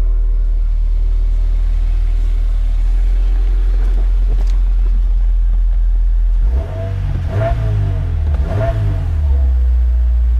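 2015 Subaru WRX's turbocharged flat-four idling steadily through its exhaust, then blipped twice, about seven and a half and nine seconds in, before settling back to idle. The revs are heard from inside the cabin.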